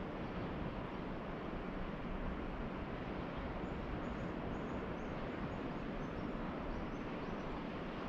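Steady hiss of distant ocean surf, with a run of faint, high bird chirps in the second half.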